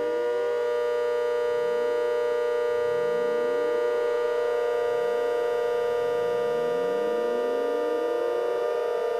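Outdoor warning sirens sounding together. One has wound up to a steady wail of several tones at once, and further sirens wind up beneath it every second or two, rising in pitch to join it.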